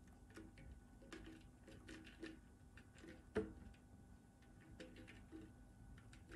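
Faint clicks and taps from a plastic bottle of powdered sugar being tipped and tapped to pour into a plastic food-processor bowl, with one sharper click about halfway through.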